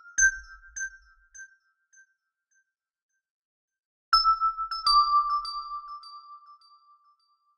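Very high piano notes tapped in quick repeated strikes, about three a second, tinkling like raindrops. The first run fades away, and after a second and a half of silence a new run starts loud on a slightly lower note and fades out.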